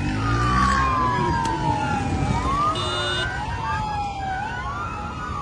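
Several police vehicle sirens wailing at once, out of step with each other: each tone sweeps up quickly, then falls away slowly over a couple of seconds.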